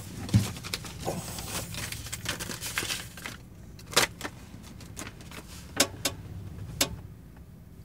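Plastic bag rustling and crinkling as it is rummaged through, stopping a little over three seconds in, then a few sharp crinkles of paper wrapping as food is pulled out. Under it runs the steady low hum of the van's engine inside the cabin.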